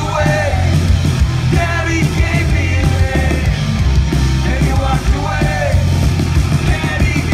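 Live rock band playing loud and steady on electric guitars, bass guitar and drums, heard from the crowd.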